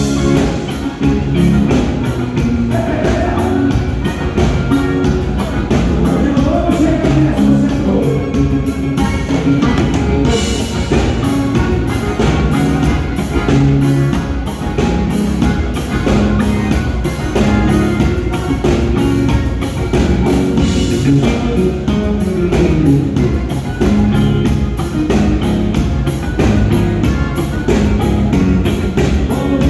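A band playing, with a drum kit keeping a steady beat under other instruments.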